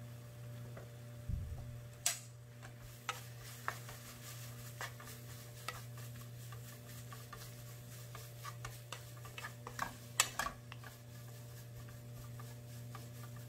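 Wooden spatula stirring dried shredded squid in a sticky gochujang sauce in a frying pan, giving scattered light clicks and scrapes against the pan, with sharper knocks about 2 seconds in and about 10 seconds in. A steady low hum runs underneath.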